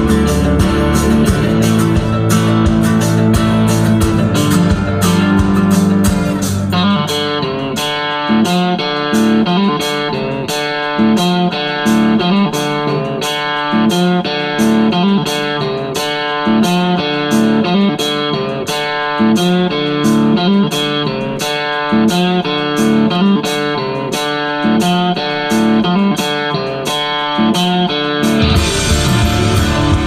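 Guitar-led music playing loud through a boat's new Fusion stereo and Bluave marine speakers and subwoofer. Heavy bass under the guitar at first; the bass drops out about a quarter of the way in, leaving a rhythmic plucked guitar pattern, and comes back near the end.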